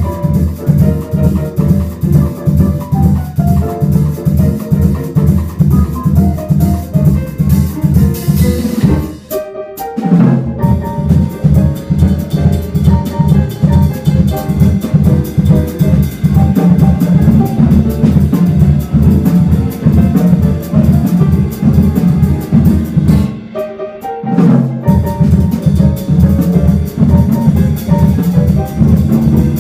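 Jazz piano trio playing live: acoustic grand piano, upright double bass and drum kit in a driving groove. The band briefly drops out twice, about nine seconds in and again near twenty-three seconds, before coming back in.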